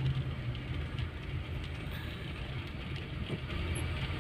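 Steady engine and road noise inside a moving car's cabin: a low hum over tyre noise.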